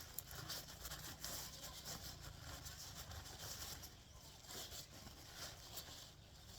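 Irregular rustling and crackling of a succulent's packaging being unwrapped and handled by hand.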